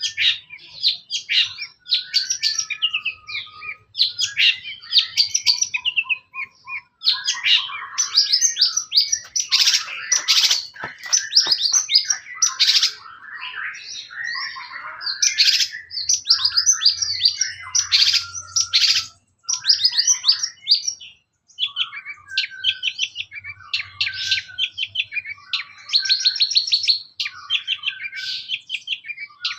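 Long-tailed shrike (cendet) singing without letup: a fast, varied chattering song of rapidly repeated high notes, with a couple of short breaks.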